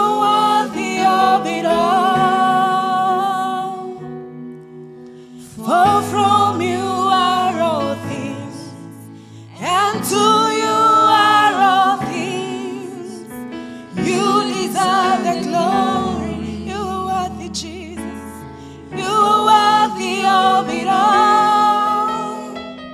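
Slow gospel worship song, sung in drawn-out phrases a few seconds long with short gaps between them, over held keyboard chords and a deep bass note that comes and goes.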